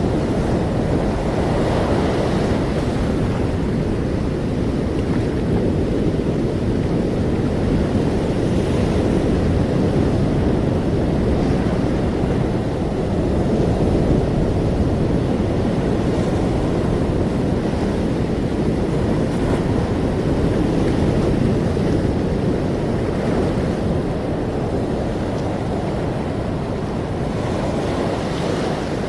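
Ocean waves washing on the shore in a steady, deep rush that swells and eases slowly, with no single wave breaking sharply.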